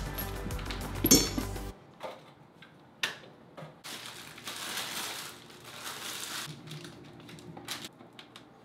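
Plastic wrapping crinkling for a couple of seconds as a toilet wax ring is unwrapped, about four seconds in, with a few light clicks and knocks around it.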